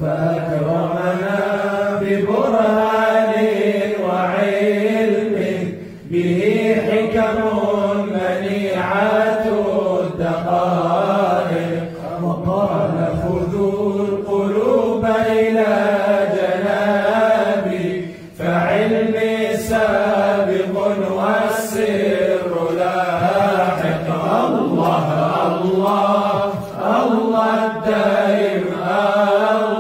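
Arabic Sufi devotional chanting (dhikr): sung melodic phrases over a steady held low drone, pausing briefly about every six seconds.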